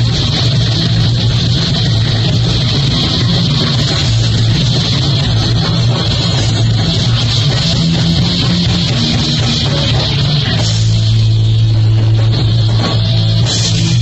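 Rock band playing live and loud: electric guitars, bass and drum kit. From about ten and a half seconds in, a low note is held, and the music stops suddenly at the very end.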